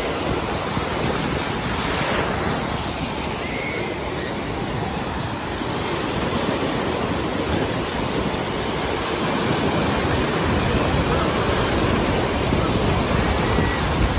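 Ocean surf breaking and washing up the shallow beach, a steady rushing wash.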